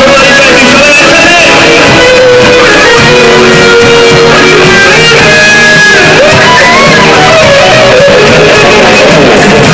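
Live band playing loudly, led by electric guitars with keyboard backing, with held and sliding melody notes over a steady accompaniment.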